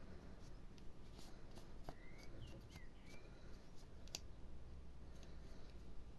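Faint rubbing and small clicks of a wet wipe being worked over the dirty parts of an opened closed-face fishing reel, with a few brief high squeaks about two seconds in.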